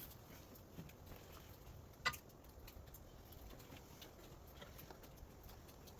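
Faint scattered light clicks and taps over a quiet background, with one sharper click about two seconds in.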